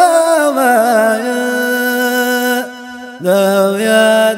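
Unaccompanied male voice singing a Dhofari wiyad chant, with long held, ornamented notes and a short break for breath about three seconds in before the voice comes back on a lower note.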